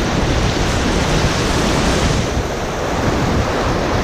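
Steady rush of river water through whitewater rapids, with wind buffeting the microphone.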